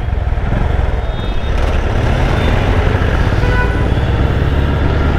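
Honda H'ness CB350's air-cooled single-cylinder engine running steadily as the motorcycle rides along in traffic, heard from the rider's seat.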